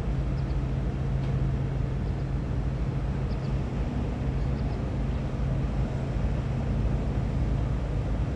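Heavy diesel engines of excavators and dump trucks running together in a steady low drone. Its low hum eases a little about halfway through, and a few faint high chirps sound over it.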